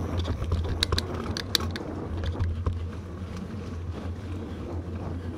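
Bicycle ridden along a paved towpath: a steady low rumble of the ride with wind on the microphone, and scattered sharp clicks from the bike, most of them in the first couple of seconds.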